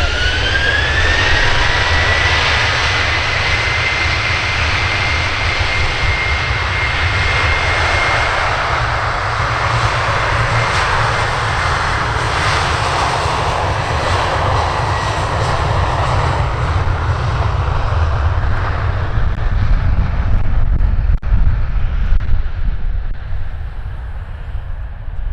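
Jet2 Boeing 737's CFM56 turbofan engines running up to takeoff power: a rising whine that levels off about a second in, then a steady high whine over a broad roar as the jet accelerates down the runway. The whine fades about halfway through, leaving the roar, which is loudest a few seconds before the end.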